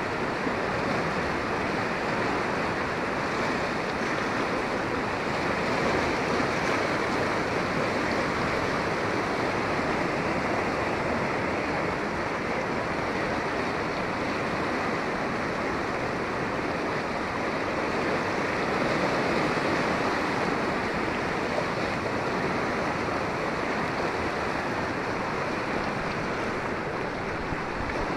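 Floodwater rushing: a river in spate running brown and fast over a flooded football ground, a steady, unbroken rush of water.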